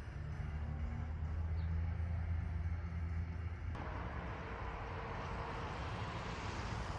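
Outdoor town street ambience: a steady low hum, like traffic or an idling engine, under a general background hiss, changing abruptly about halfway through to a lighter, hissier background.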